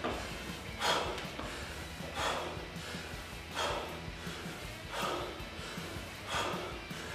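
A man breathing hard from exertion during bodyweight squats: a forceful exhale roughly every one and a half seconds, about five in all, one with each rep.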